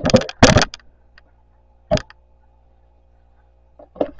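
A few knocks and clicks: a cluster of sharp knocks in the first second and a single click about two seconds in, over a faint steady hum. These are handling noises of a moving handheld camera.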